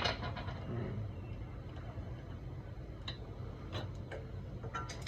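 Light metal clicks and taps from working a brake pad retaining pin into a Brembo brake caliper and pads: one sharp click at the start, then scattered lighter clicks about three and four seconds in and near the end.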